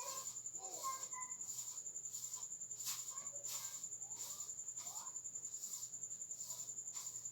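Insects, crickets, calling: a steady high trill with a second hissing call that pulses about one and a half times a second. Faint scattered chirps sound underneath.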